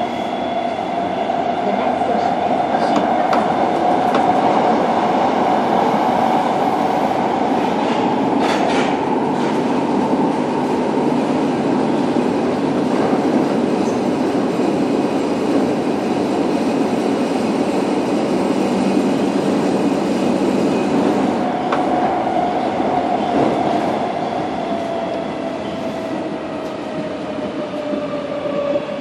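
Interior running sound of a Tokyo Metro 02 series subway car with PMSM VVVF traction motors: a steady rumble of wheels on rail with a motor whine and a few rail-joint clicks. From about 22 s in, the whine falls steadily in pitch and the noise eases as the train slows.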